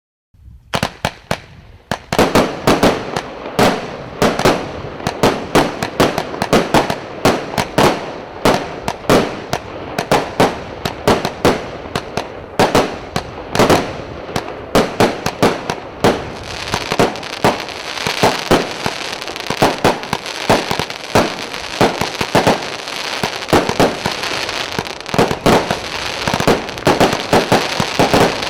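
A Premier Salyut 'Batalia' 280-shot firework cake, a whistling type, firing in rapid succession, several shots a second. It starts with a few scattered pops and is firing continuously within about two seconds. About halfway through, a steady high hiss and crackle fills the gaps between the shots.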